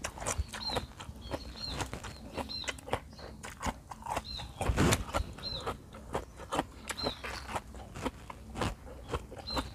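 Close-up chewing of raw beef liver, with many small wet mouth clicks and one louder, longer mouth noise about five seconds in. A short high bird chirp repeats roughly every second in the background.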